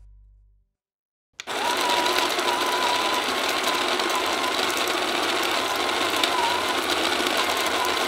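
Electric burr coffee grinder grinding beans: a steady motor whine over a dense gritty rush, starting abruptly about a second and a half in.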